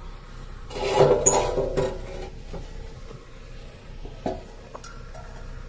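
Steel loading ramps of a car-carrier trailer clattering and scraping as they slide into their metal storage box, for about a second and a half starting a second in. A single sharp metallic knock follows near the end.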